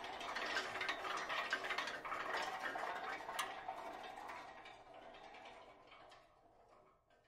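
Marimbas played softly by a percussion ensemble: a dense patter of quick ticking notes that thins out and dies away to silence over the last few seconds.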